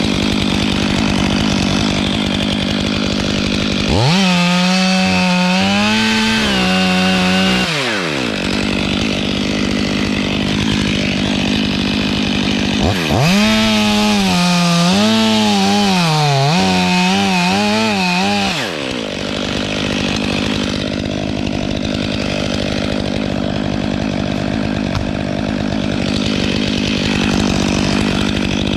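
Stihl 500i chainsaw idling, twice opened to full throttle for cuts into the spar, about four and six seconds long. Its pitch wavers as the chain bogs in the wood, then drops back to idle.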